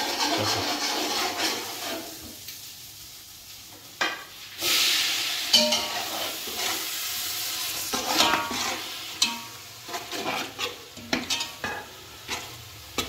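Food frying and sizzling in hot oil in a large cooking pot while a metal spoon stirs it, scraping and knocking against the pot. The sizzling swells suddenly about four and a half seconds in, and the spoon's knocks come thick and fast in the second half.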